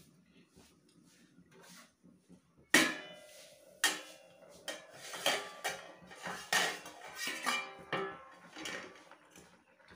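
Metal cookware clanking: a steel lid, a steel spoon and a metal kadhai knocking together, with a sharp ringing clang about three seconds in, another just after, then a run of lighter clinks and knocks as the lid is taken off the pan of curry.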